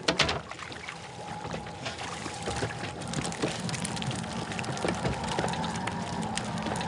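Water pouring and dripping from a cast net full of pogies as it is hauled out over the side, with a sudden splash at the start. Then many small quick taps and patters as the bait fish flap in the mesh on the boat deck.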